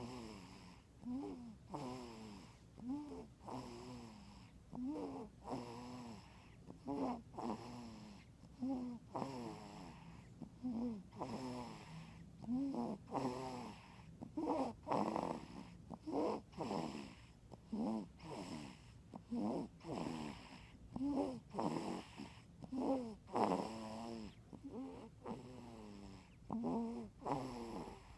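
Snoring, one short snore about every second in a steady rhythm, each falling in pitch.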